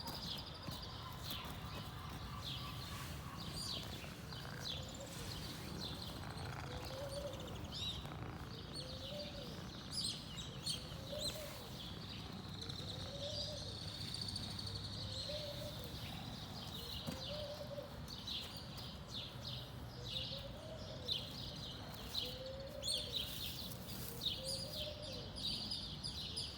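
Small birds chirping and twittering, over a steady low background rumble. From about six seconds in, a low call that rises and falls repeats roughly once a second.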